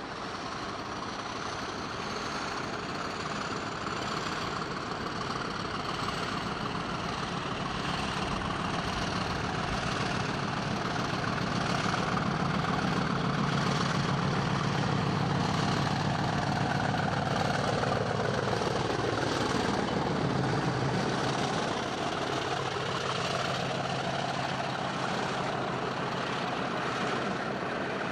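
Diesel locomotive hauling a passenger train. Its engine grows louder as it approaches and runs close by. The engine note drops in pitch as it passes about two-thirds of the way through, and the coaches then roll by on the rails.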